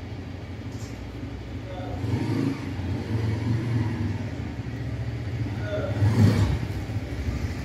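Bajaj Pulsar motorcycle engine running as the bike is ridden up close, revving and getting louder, loudest a little after six seconds in.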